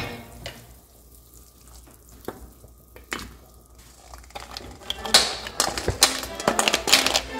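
Tomato-based cioppino broth simmering quietly, with faint bubbling and an occasional pop. About four and a half seconds in comes a rapid clatter: clam and mussel shells knocking against each other and a steel bowl as they are tipped into the pot.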